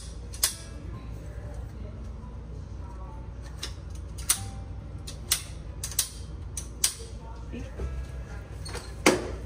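Sharp, irregular clicks and clacks of a front-wheeled walker's aluminium legs as the wheeled legs are switched to the other side and the push-button pins snap into their height-adjustment holes.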